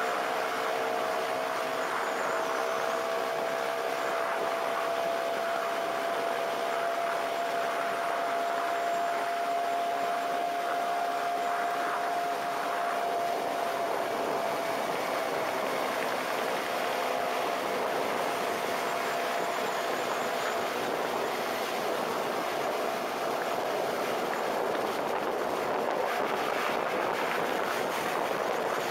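Suzuki motorcycle riding at highway speed: a steady rush of wind and road noise, with a steady whining tone that fades out about halfway through.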